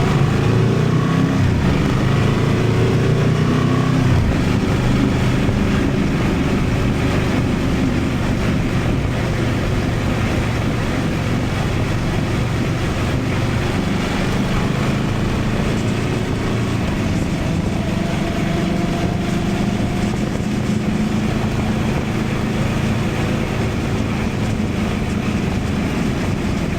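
Honda Transalp 750's parallel-twin engine running steadily on the move, its note drifting slightly up and down, over a constant rush of riding noise.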